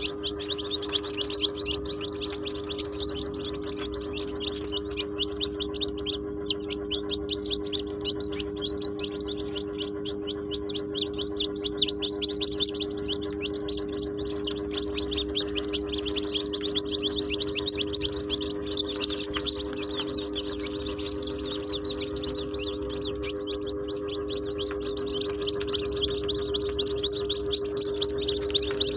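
Many newly hatched chicks peeping continuously, a dense chorus of high-pitched peeps several per second, over a steady low hum.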